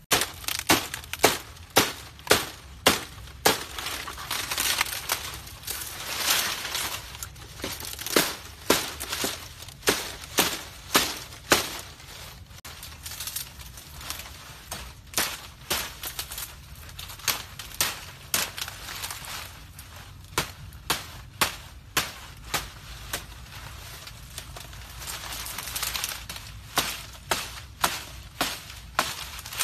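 Machete chopping into palm fronds: runs of sharp chops, one or two a second, with the leaves crackling and rustling between strikes.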